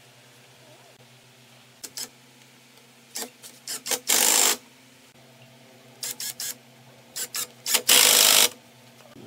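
Cordless impact drivers driving screws into a pine frame: several short trigger blips to start each screw, then a longer run of about half a second to sink it, twice over, about four seconds in and again near the end.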